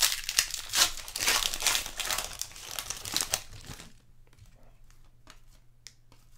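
Trading-card pack wrapper crinkling and tearing as a pack is opened, for about four seconds, followed by a few faint light clicks.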